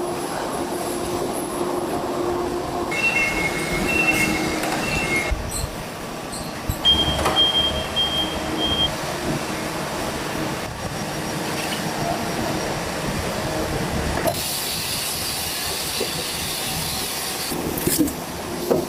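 Poultry-processing machinery running: a steady mechanical din with high metallic whines and squeals. The sound changes abruptly several times.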